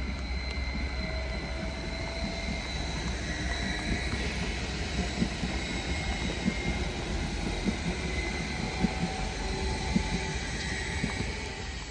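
Regional electric multiple unit passing on a track: a steady electric whine over a low rumble, with a series of wheel clacks over the rail joints as it goes by, easing off near the end.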